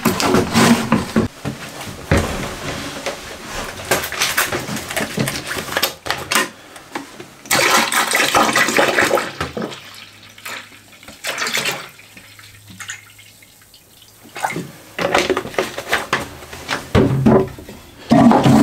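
Marine toilet on a sailboat being flushed, water gurgling and splashing in the bowl, then blue coolant poured into the bowl to keep it from freezing. The sound comes in uneven splashy bursts, loudest about halfway through, with a quieter stretch after it.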